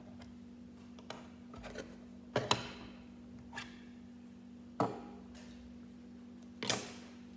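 Plastic LEGO pieces being handled and put down on a table: a few sharp clicks and knocks, the loudest about two and a half, five and seven seconds in, over a steady low hum.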